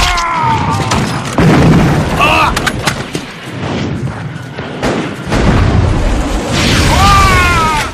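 Battle sound effects of a film combat scene: gunfire and blasts, with men shouting and screaming in short bursts, one at the start, one about two seconds in and one near the end.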